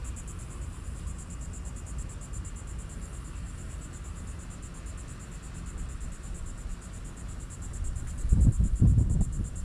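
Insects trilling, a steady high-pitched sound in fast even pulses, over a low rumble that grows much louder near the end.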